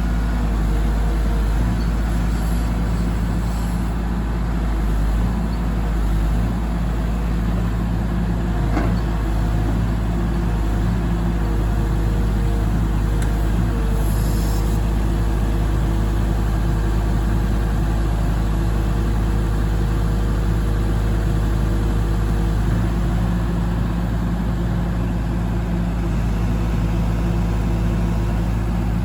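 Diesel engine of a 2007 New Holland MH3.6 mobile excavator running steadily, its tone shifting slightly a few times as engine speed or load changes.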